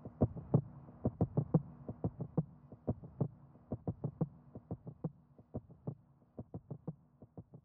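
Outro of an electronica track: a quick, heartbeat-like pulse of soft electronic thuds over a faint steady drone, fading out.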